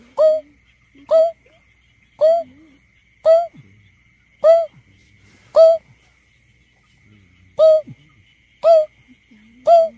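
Greater painted-snipe giving a series of short, low hoots, about one a second, nine in all with a brief pause past the middle.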